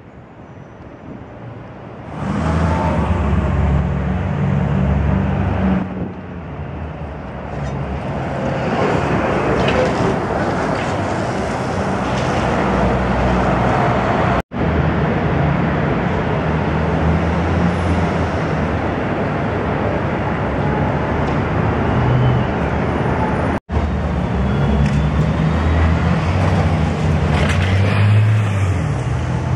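Downtown street traffic with buses and cars passing: a steady, loud road roar with low rumble. It swells about two seconds in and is broken twice by brief silent gaps.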